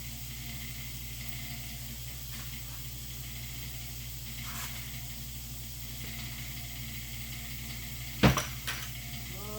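Steady low hum and hiss of the room, with one sharp knock near the end and a smaller knock just after it.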